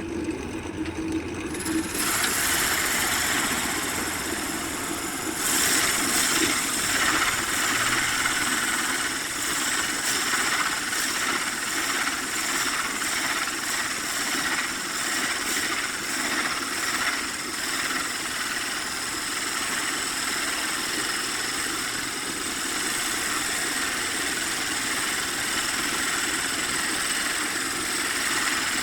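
Electric workshop power tool running steadily with a high whine, a rougher hiss coming in about two seconds in as it works the wood and resin.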